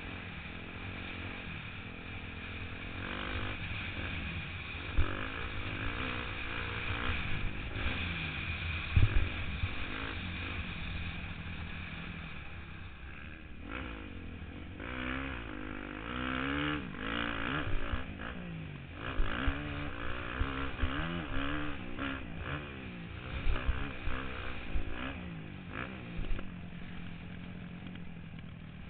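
Motocross dirt bike engine heard from a helmet-mounted camera while riding, its pitch rising and falling repeatedly as the throttle opens and closes, with a few sharp knocks along the way.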